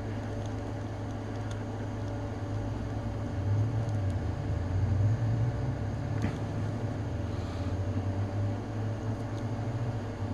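A steady low hum, like a fan or appliance in the room, growing somewhat louder and rougher from about three seconds in, with a few faint clicks.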